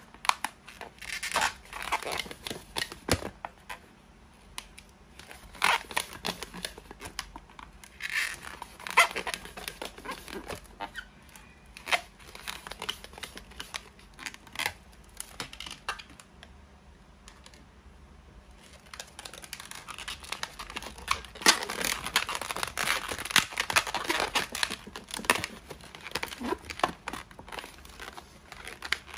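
Inflated latex modelling balloons rubbing and crackling under the hands as they are twisted into bubble segments. The noise comes in irregular bursts with many small clicks, and there is a quieter stretch about halfway through.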